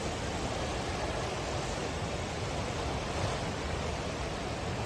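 Flash-flood river water rushing in a steady, dense torrent, a continuous even noise with no breaks.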